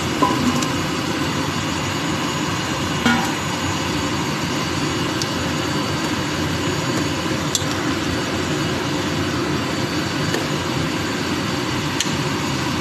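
Pot of vegetable broth boiling hard on a gas stove: a steady rumbling hiss. Just after the start, chunks of squash and string beans drop into the water, and a few light clicks of a spoon on the enamel pot follow.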